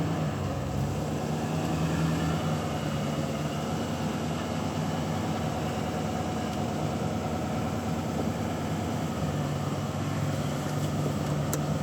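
Pickup truck engine running steadily, a low even hum that shifts slightly in pitch about a second in and again near the end.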